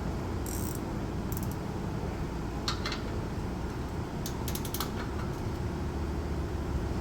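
Metal hand tools clicking and clinking as a socket wrench and sockets are handled, with a few single sharp clicks and a quick run of about five clicks a little past the middle, over a steady low hum.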